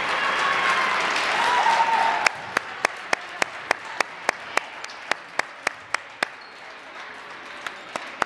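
Applause and cheering with shouting for about two seconds, cutting off abruptly. Then comes a quick, even run of sharp hand slaps, about three a second, as players slap hands down a volleyball post-match handshake line, with a few more slaps near the end.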